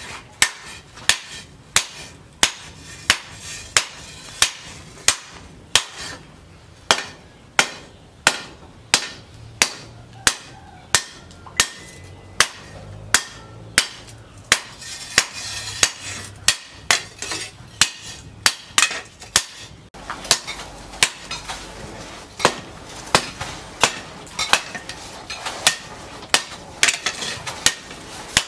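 Hand hammer forging a red-hot steel knife blank, cut from a tractor disc plough, on a steel-post anvil. Steady, sharp metallic blows at about two a second.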